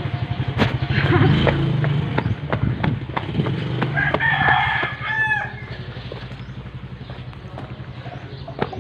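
A rooster crowing once, about four seconds in, over a steady low hum.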